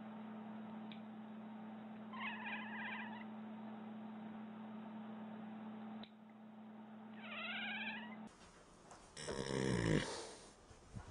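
A tabby cat asleep on its back, purring steadily, gives two short, wavering, squeaky chirps. Then a sleeping brown-and-white pinto horse snores loudly, one long snore about ten seconds in.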